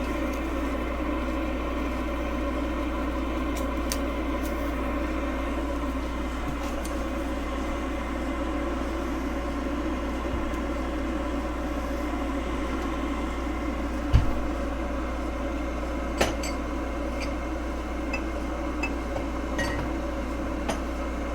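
Vycoda gooseneck electric kettle heating water near the boil: a steady hissing rush from the water. A sharp knock comes about 14 seconds in and a clink a couple of seconds later, with a few light ticks near the end.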